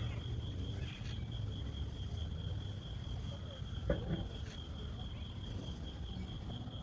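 Insects trilling steadily in one high, finely pulsed note, over a low background rumble, with a single brief knock about four seconds in.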